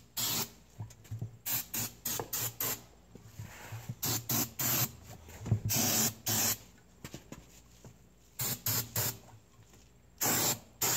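Aerosol can of starting fluid (ether) sprayed into the gap between a tire bead and its rim, in a series of short hissing bursts, about a dozen, a few lasting around half a second. This is the fuel charge that will be lit to seat a blown tire bead.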